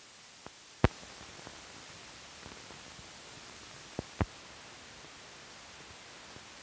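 Faint steady hiss of an old film soundtrack, broken by a few sharp clicks and pops from dirt on the film. The loudest pop comes about a second in, and a close pair of clicks comes around four seconds.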